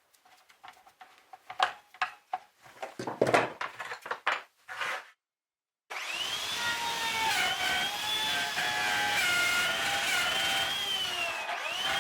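A few irregular knocks and clicks, then, after a cut, a hand-held power tool running steadily with a whine that wavers up and down in pitch as it works.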